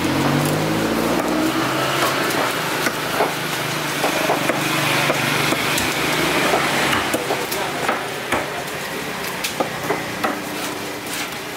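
Busy market background noise with irregular sharp clicks and knocks throughout, and a low drone in the first second or two.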